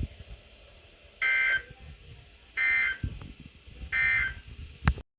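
Emergency Alert System SAME data tones from a NOAA Weather Radio: three short, identical warbling bursts about 1.3 seconds apart, the digital code that ends one alert message and starts the next. A sharp click near the end.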